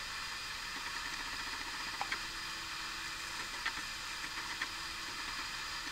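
Steady background hiss with a few faint light clicks, about two seconds in and again a few times after three and a half seconds, as an eyeshadow palette is handled.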